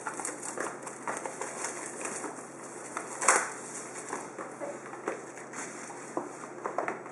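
Clear plastic shrink-wrap being torn and crumpled off a trading-card box: irregular crinkling and crackling, with one louder crackle a little over three seconds in.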